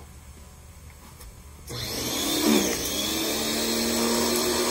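Sun Joe SPX3001 electric pressure washer's motor starting up with a rising whine nearly two seconds in, then running steadily.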